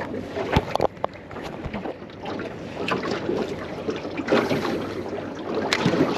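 Water sloshing against a small boat's hull with wind on the microphone, and a few sharp knocks about half a second to a second in.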